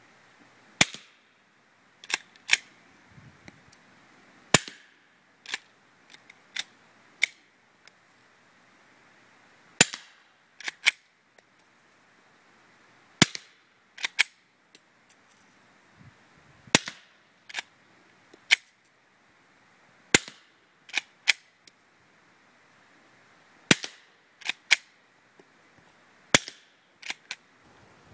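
Suppressed 9mm shots through a Thompson Machine XD 2.0 subgun suppressor, fired singly with the action cycled by hand between shots. About two dozen sharp cracks come unevenly spaced a second or two apart, some in quick pairs or threes, and several are followed by a softer crack.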